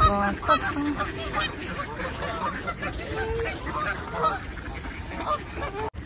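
A large flock of Canada geese honking: many short overlapping calls, busiest in the first second and a half, then scattered honks through the rest.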